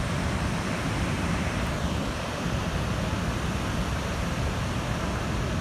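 Niagara Falls' water plunging into the gorge: a steady, unbroken roar of rushing water, heaviest in the low end.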